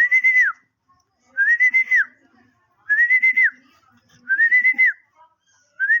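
A high whistle-like call repeated five times, about one every second and a half; each rises briefly, holds with a slight wobble, then drops off.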